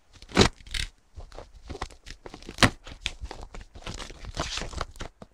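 Cardboard shipping box being cut and torn open at its end: the knife slicing packing tape and the flaps tearing, with irregular rasping scrapes and a sharp crack about two and a half seconds in.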